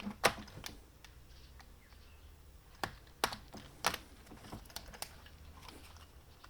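Irregular sharp clicks and ticks of stiff old nylon trimmer line being pulled and picked off the brushcutter, where it had wound up and melted together.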